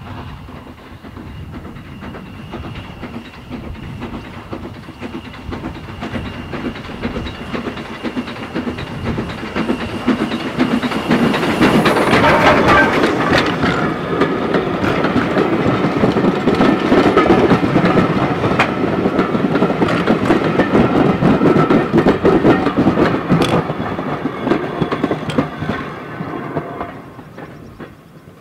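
Hunslet Austerity 0-6-0 saddle tank steam locomotive hauling a passenger train past, growing louder as it approaches. The carriages then rumble and click over the rail joints as they go by, and the sound fades near the end.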